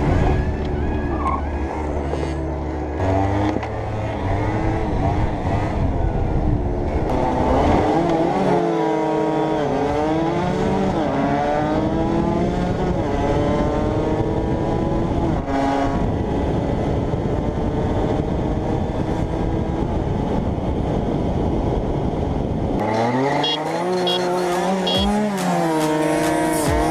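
Small 50cc two-stroke motorbike engine revving up and dropping back over and over as it is ridden hard, its pitch climbing and falling repeatedly.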